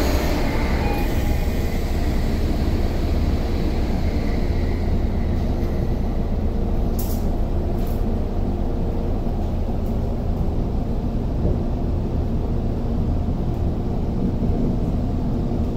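Inside a Tokyo Metro 05 series subway car: the train's steady low rumble and hum as it pulls out of the station and runs on, with two sharp clicks a second apart about halfway through.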